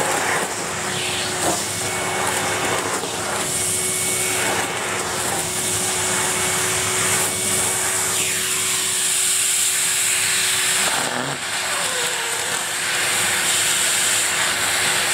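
Numatic Henry cylinder vacuum cleaner running steadily: a constant motor whine over the hiss of rushing air, with scattered short crackles and scrapes as dry leaves are sucked up off a carpet.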